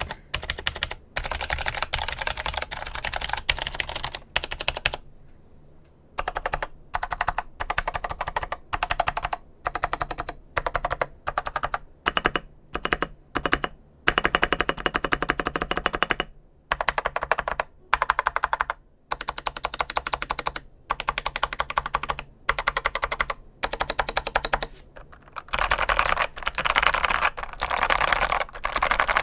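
Typing on a mechanical keyboard with clicky switches: quick runs of sharp key clicks in bursts of a second or two, with short pauses between. Near the end the typing becomes continuous, louder and fuller.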